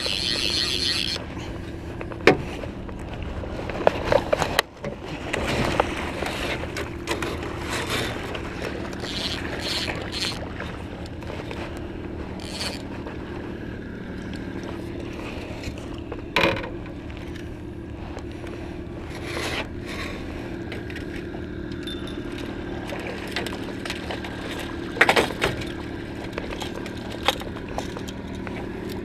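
Small fishing boat's motor running steadily at trolling speed, a low even hum, with a few sharp knocks and clatters on the boat. A fishing reel's rapid ratcheting clicks stop about a second in.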